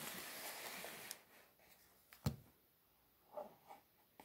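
A cardboard box being slid and turned by hand on a carpet, rubbing with a rustling hiss for about a second. A single sharp knock follows about two seconds in, then a few light taps of handling.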